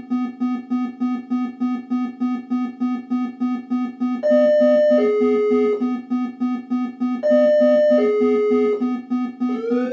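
Several aircraft cockpit warning alarms sounding at once. A rapid low beep repeats about four times a second throughout, and a two-note falling chime comes in twice over it. Near the end a rising, whooping tone starts up.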